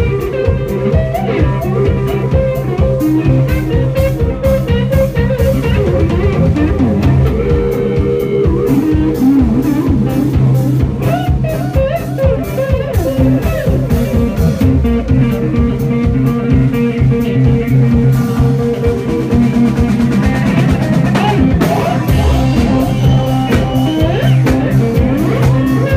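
Live blues-rock band playing an instrumental passage: electric guitar lead lines that bend in pitch over electric bass and a drum kit.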